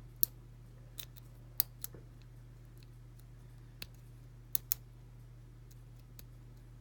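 Sharp metallic clicks at irregular intervals from a lock pick working the pins of a 5-pin Ace closed-shackle padlock under heavy tension. There are several in the first two seconds and a quick pair about two-thirds of the way through.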